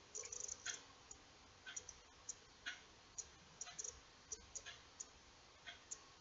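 Faint, irregular light clicks, a few a second, from a small steel crochet hook being worked by hand through embroidery floss.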